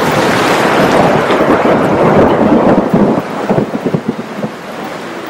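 Heavy rain pouring down in a loud, dense hiss that eases somewhat about three seconds in.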